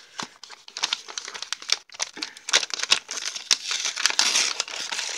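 Gift wrapping paper crinkling and crackling as a small wrapped package is unwrapped by hand, a dense run of short crackles.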